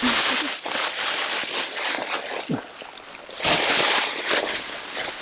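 Thin plastic bags rustling and crinkling as hands dig through them, loudest about three and a half seconds in.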